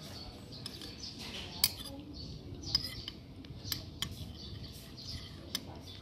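Metal spoon clinking and scraping against a bowl while eating, with about four sharp clinks spaced roughly a second apart. Birds chirp in the background.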